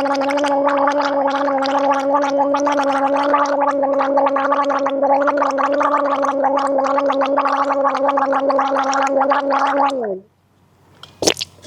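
A woman gargling warm salt water, holding a steady 'aah' through the bubbling; the tone dips in pitch and stops about ten seconds in. A single sharp click follows shortly after.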